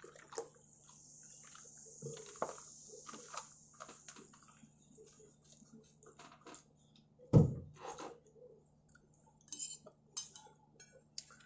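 A dark fizzy drink is poured over ice in a plastic cup, with a fizzing hiss for about three seconds. Scattered clinks and knocks of a spoon and dishes follow, with one louder thump about seven seconds in.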